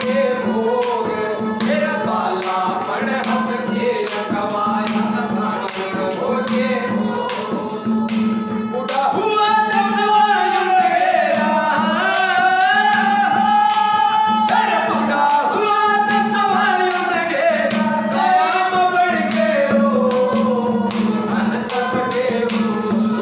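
A man sings a Haryanvi chetawani bhajan, accompanied by harmonium and a dholak played in a steady rhythm. The voice gets louder about nine seconds in, with long held notes.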